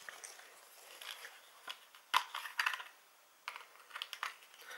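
A string of small, irregular plastic clicks and taps as a handheld TV remote is handled and its battery cover is opened.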